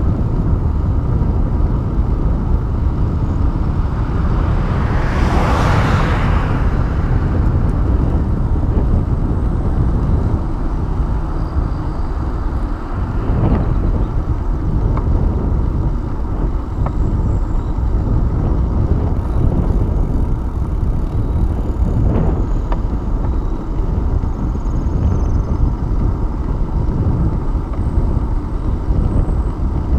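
Steady wind buffeting a handlebar-mounted camera's microphone on a moving bicycle, a heavy low rumble mixed with tyre noise on asphalt. About five seconds in, a broad swell of noise rises and fades over a couple of seconds.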